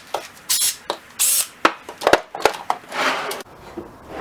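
A wooden tool-cart drawer being handled: short sliding scrapes and several sharp knocks and clicks.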